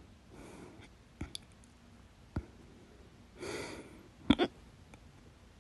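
A person hiccupping: sharp, sudden hiccups about a second in and again after two seconds, then a loud double hiccup around four seconds in, with breathing in between.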